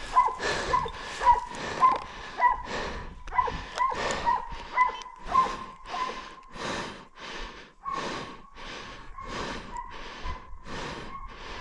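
A person breathing hard and fast, short rasping breaths about two a second, with a faint steady high tone underneath.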